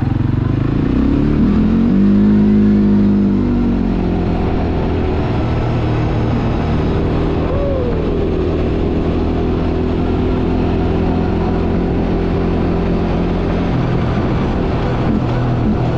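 ATV engine pulling away, its pitch rising and then falling back over the first few seconds, then running at a steady speed while riding.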